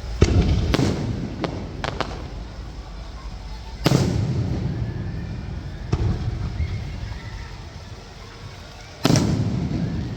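Fireworks going off: sharp bangs of shells bursting, each trailing off in a rolling rumble. Four come in quick succession in the first two seconds, then single bursts about four, six and nine seconds in.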